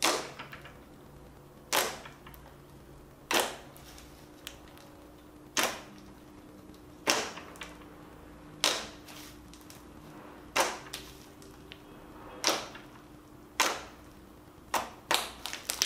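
Green slime being pressed and kneaded flat by hand on a table, giving sharp clicks from trapped air popping. There are about a dozen, irregularly spaced, one every one to two seconds.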